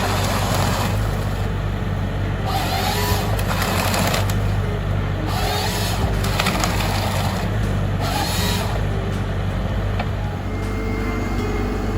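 Diesel-powered wood-cutting machine running steadily, with a burst of wood being cut or split about every two and a half seconds.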